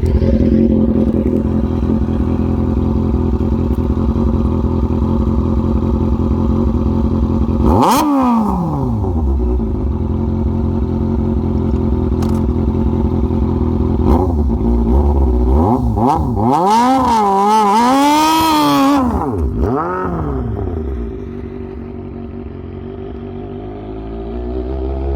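An engine idling and being revved: one rev about eight seconds in, then several quick revs in a row around sixteen to twenty seconds in, settling back to a quieter idle and starting to rise again near the end.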